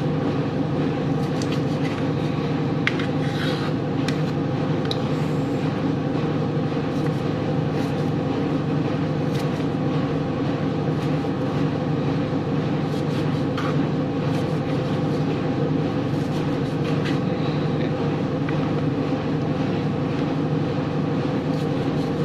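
A steady mechanical hum with several held tones, like a fan or motor, runs throughout. Over it come scattered light taps of a knife slicing tomatoes on a cutting board.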